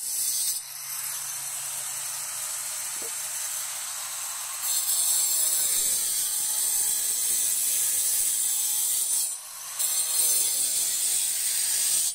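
Continuous rasping, scraping noise like sawing, louder from about five seconds in and dipping briefly near nine and a half seconds.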